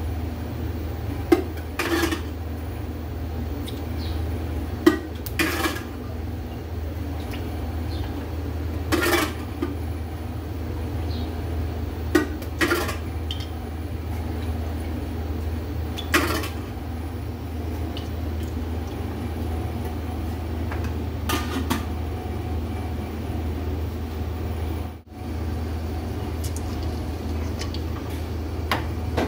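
A metal ladle clinking and knocking against an aluminium karahi as cooking oil is ladled in, about ten separate clinks spread out over a steady low hum.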